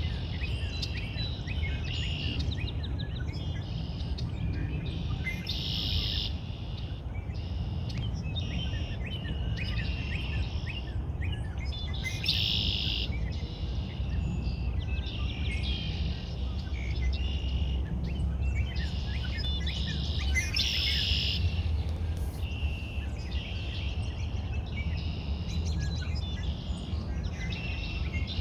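Songbirds chirping and calling, many short repeated notes, louder in a few bursts, over a steady low rumble.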